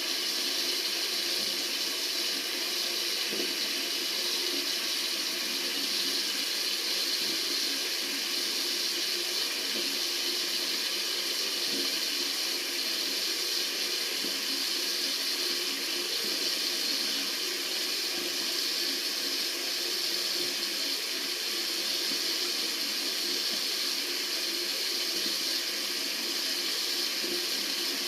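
Tap water running steadily from a faucet into a sink, a constant hiss with no breaks.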